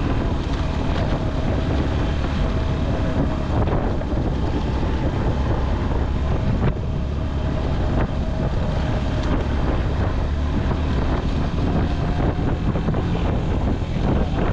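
Motorcycle engine running steadily while riding over a rough gravel track, with wind rushing over the microphone.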